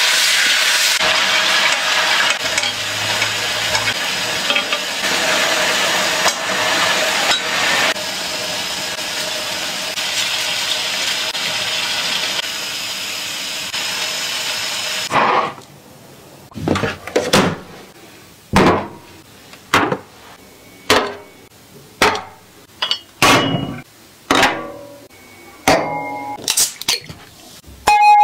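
Skewered tentacles sizzling loudly in an oiled flat griddle pan, a dense steady hiss that cuts off sharply about fifteen seconds in. After it comes a series of a dozen or more separate knocks and clinks, each ringing briefly.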